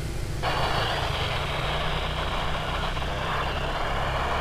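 Motorcycle engine running steadily under way, a low rumble, joined about half a second in by a steady hiss.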